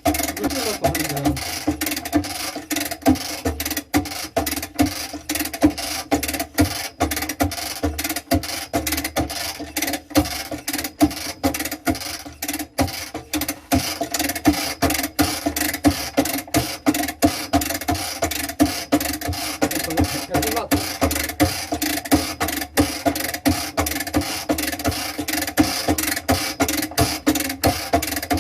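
A machine running with a steady hum, overlaid by a rapid, uneven clatter of sharp clicks several times a second, during work replacing embedded air-conditioner piping.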